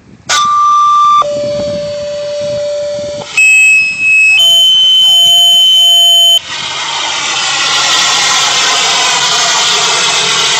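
Fire dispatch paging tones: two two-tone sequential alerts, the first a higher tone dropping to a lower one held about twice as long, the second a pair of high tones stepping up. Then a steady loud hiss of open radio channel noise for about six seconds.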